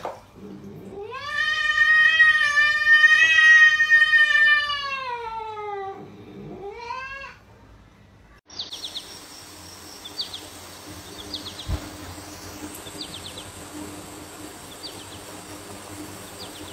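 A cat yowling at a dog: one long drawn-out wail of about five seconds that sinks in pitch at its end, then a shorter rising one. After a cut, a faint steady outdoor background with faint high chirps.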